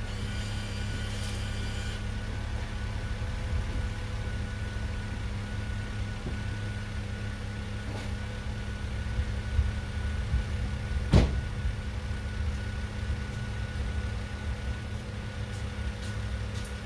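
Volvo XC60 idling with a steady low hum. A thin high whine sounds over it for the first two seconds, and there is a single sharp thump about eleven seconds in.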